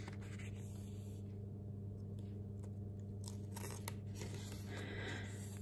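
Glossy pages of a K-pop album photo book being turned by hand: soft paper rustles and a few light clicks over a steady low hum.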